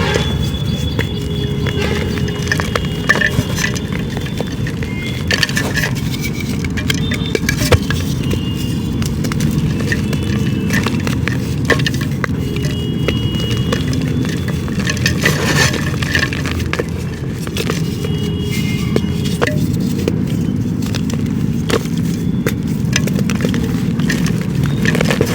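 Dried clay being crumbled and crushed by hand: a dense run of small crackles and crunches of breaking pieces.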